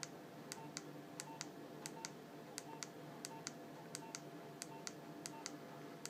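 Nokia 2310's navigation key clicking as it is pressed repeatedly to scroll through a menu, about every two-thirds of a second, each press a quick double click with a faint short beep.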